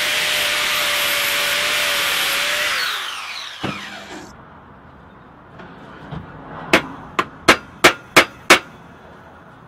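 Angle grinder grinding a metal handle wedge flush with the top of an axe head, then switched off and winding down. A few seconds later, six sharp ringing hammer blows about a third of a second apart knock the wedge further into the handle.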